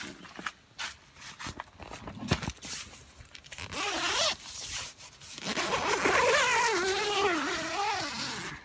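Tent door zipper being pulled open, in a short run about four seconds in and then a longer run of about three seconds near the end, after a few seconds of rustling and small clicks.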